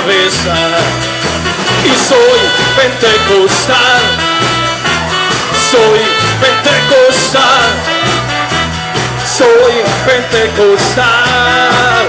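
Upbeat worship music played by a band: a bass line stepping from note to note under a steady drum beat, with a wavering melody line on top.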